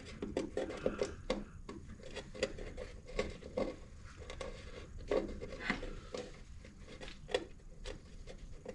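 Hand tools clicking and knocking irregularly as drain plugs are threaded back in and torqued on a snowmobile engine.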